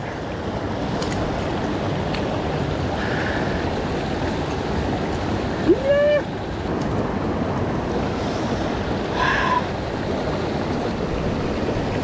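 Mountain stream rushing steadily, a constant wash of water. Near the middle come two short pitched calls, the first sliding upward.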